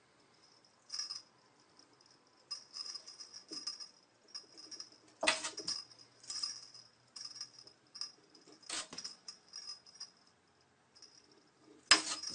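A ferret's collar jingling in quick short bursts as it hops and scampers on carpet, with three sharp knocks, about five, nine and twelve seconds in, the last the loudest.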